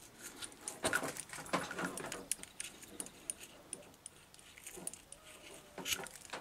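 Light metallic scratching and scattered small ticks of a screwdriver tip being pulled through the steel wire braid of SY cable, working the braid strands loose.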